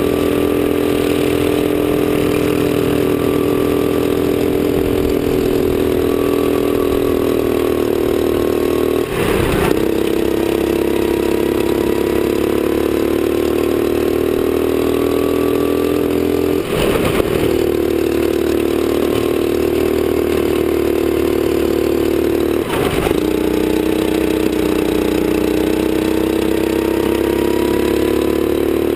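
Sodi rental kart's four-stroke engine heard from the driver's seat at speed, its pitch climbing slowly as it accelerates. Three times it dips briefly with a short rattle, as the driver lifts off for a corner, then climbs again.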